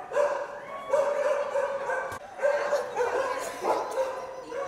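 Kennelled shelter dogs barking and yelping, one drawn-out call after another, about five in a row.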